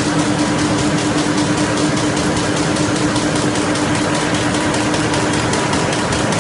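FL Smithe RA WA envelope folding machine running at production speed: a fast, even mechanical clatter over a steady hum as envelopes are folded and delivered.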